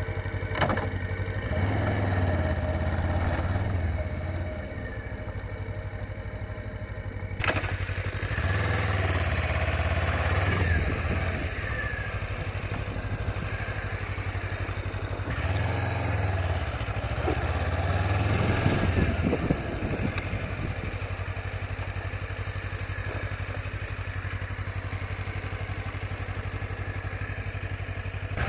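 Suzuki V-Strom 250's parallel-twin engine running as the motorcycle is ridden, its revs rising and falling several times with throttle and gear changes, over a steady rushing noise.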